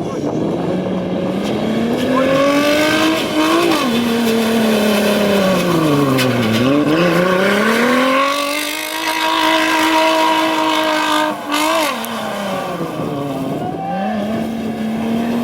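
Off-road 4x4's engine revving hard, its pitch climbing, dropping sharply about six seconds in, then holding high for a few seconds before falling and rising again.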